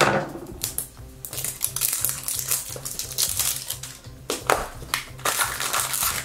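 Background music with a steady beat, over the clicks and rattles of a plastic toy capsule being pulled apart, then the crinkle of a foil blind-bag wrapper near the end.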